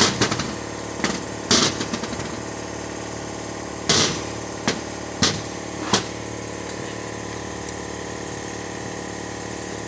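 Die grinder running steadily, with about seven short, harsh bursts in the first six seconds as it bites into the steel rivets of a clutch basket to grind them flush.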